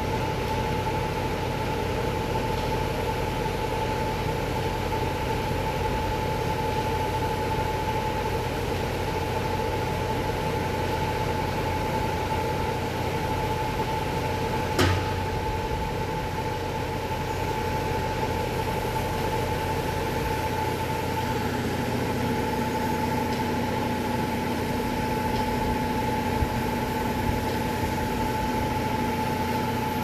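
Steady mechanical hum of a running engine or motor with a constant high whine over it. A single sharp click comes about halfway through, and a lower tone joins in during the last third.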